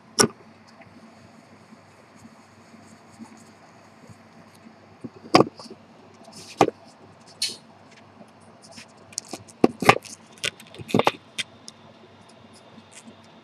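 Handling noises of a stainless-steel watch case being touched and moved on a table: scattered sharp taps and clicks, with a quick run of them about ten seconds in.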